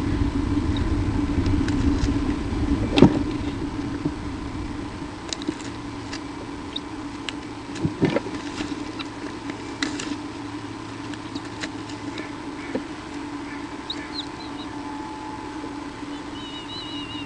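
Nest-camera microphone picking up a steady electrical hum, a low rumble in the first few seconds, and a few scratches and knocks as birds shift in the nest, the loudest about three seconds in. A faint high chirp comes near the end.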